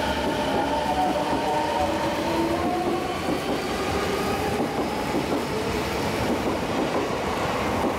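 Odakyu 4000-series electric train pulling out and gathering speed, its VVVF inverter and traction motors whining in several tones that rise in pitch, over a steady rumble of wheels on the rails.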